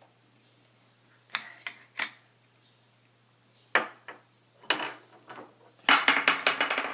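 Scattered sharp clicks and taps of small hard objects being handled on a tabletop, then a quick run of rattling clicks near the end.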